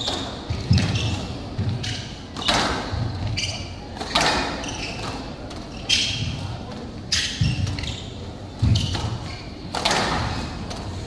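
A squash rally: the ball is struck by rackets and hits the walls of a glass-walled court in a reverberant hall, a sharp knock about every one to two seconds.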